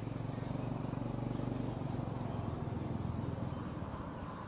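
Low engine hum of a passing motor vehicle, swelling in, holding steady, then fading near the end.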